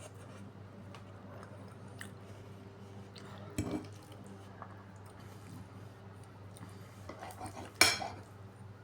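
Cutlery clinking against a dish: a few separate sharp clicks, the loudest near the end, over a low steady hum.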